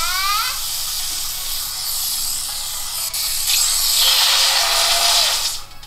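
Sound of the Pixel 4's Pikachu Motion Sense greeting: a loud, steady, high-pitched hiss that cuts off suddenly just before the end, opening with a short rising chirp.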